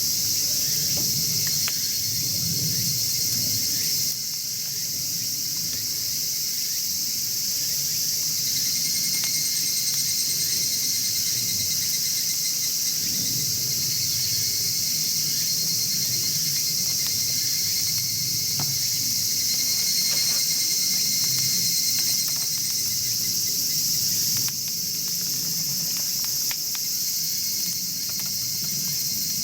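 Chorus of insects trilling, a steady high-pitched sound. Faint irregular crackles come from a wood fire burning in a chimney-style fire pit.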